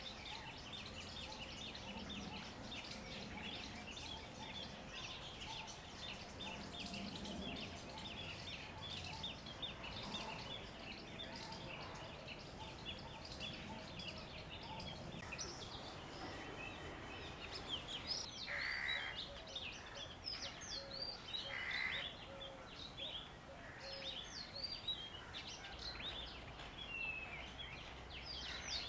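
Outdoor ambience of many small birds chirping and calling in a busy, overlapping chorus of short high notes, with two brief buzzy bursts about three seconds apart past the middle.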